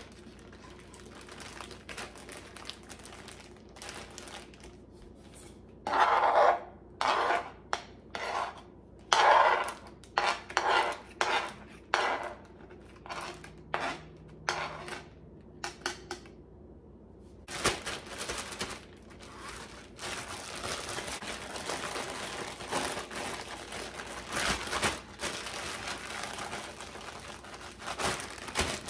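A kitchen knife tapping and scraping as chopped onion is pushed into a plastic zip-top bag, with a run of sharp knocks in the first half. From about two-thirds of the way through, the plastic bag crinkles steadily as it is handled.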